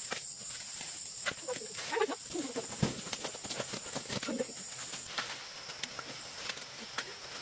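Dry corn plants crackling and snapping as they are handled in the harvest, with a steady high insect chirring behind. A few brief low calls come in around two and four seconds in.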